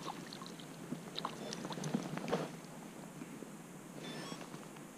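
A hooked crucian carp splashing at the surface and being lifted into an inflatable boat, with a run of small clicks and knocks from handling the fish and tackle, loudest about two seconds in.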